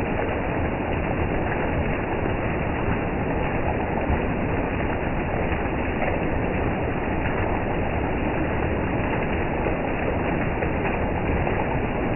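Heavy rain pouring steadily onto broad-leaved plants and trees, an even, unbroken hiss.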